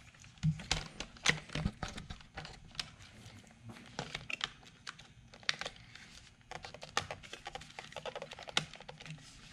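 Irregular clicks and taps of a silver plastic steering-wheel trim bezel being handled, lined up and pressed onto its snap clips.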